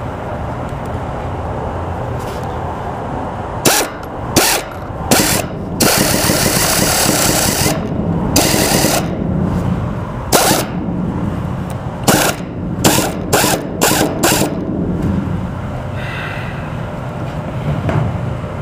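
Power driver running in short bursts, with one longer run of about two seconds, tightening self-tapping bolts through a metal carport roof panel into its pole.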